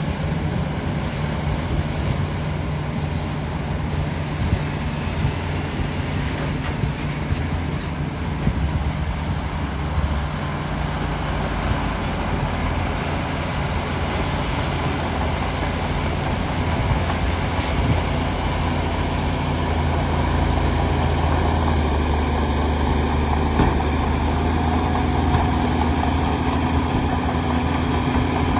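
Shantui DH17 bulldozer's diesel engine running steadily under load, its note shifting a couple of times.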